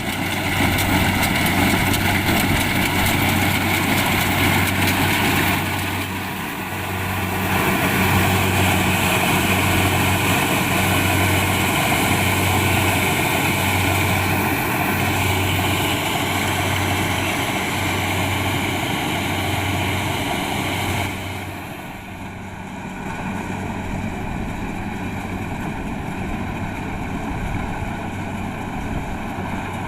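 Kubota DC-70 Plus rice combine harvester running, its diesel engine and machinery making a loud steady drone. A low hum throbs about once a second through the middle. The level dips briefly about six seconds in, then drops and stays lower about two-thirds of the way through.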